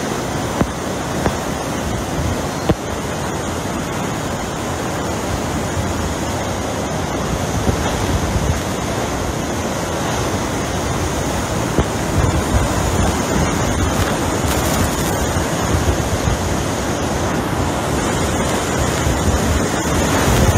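Hurricane-force wind and driving rain: a loud, steady rush with wind buffeting the microphone, growing a little louder in the second half. A few brief knocks in the first three seconds.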